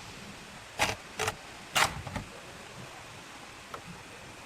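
Three sharp plastic clicks or knocks about half a second apart, then a faint tick near the end, as parts of a spa filter pump are handled and fitted.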